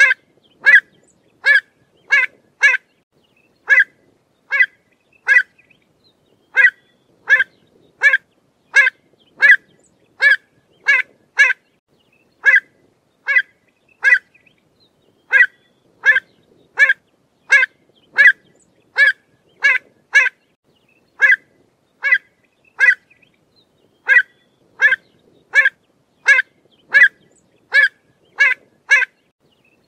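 Pied avocet calling: short, clear single-note 'kluit' calls repeated a little over once a second, with a few brief pauses in the series.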